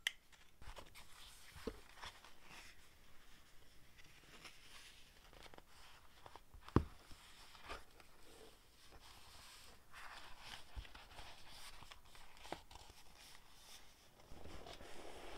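Hands rustling and smoothing collaged vintage paper in a traveler's notebook, with light taps and handling clicks and one sharper knock near the middle.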